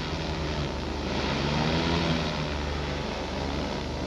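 Multirotor agricultural spray drone hovering and manoeuvring low overhead: the steady hum of its propellers, several low tones drifting a little in pitch as the rotors change speed.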